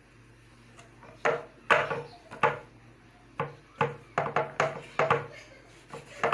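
Kitchen knife cutting through soft risen dough and knocking on a wooden cutting board, a dozen or so uneven taps starting about a second in, some in quick runs.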